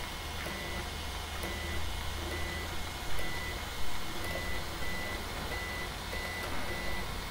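Cetus 3D printer's Z-axis stepper motor jogging the nozzle down in small steps, each move a short, steady tone, repeating about once a second, with light mouse clicks between. A low, steady hum runs underneath.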